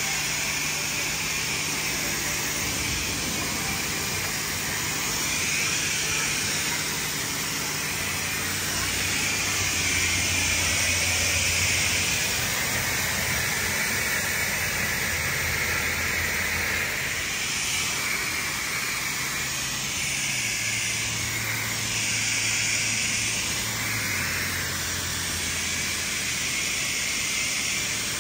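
Self-serve car wash pressure-washer wand spraying a steady high-pressure jet of water onto a car. The hiss changes in tone as the spray is swept across different panels, with a low steady hum underneath that shifts in pitch a few times.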